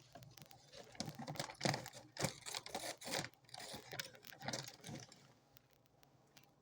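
A burst of irregular clicking and rustling, like handling or tapping noise, lasting a few seconds over a faint steady hum.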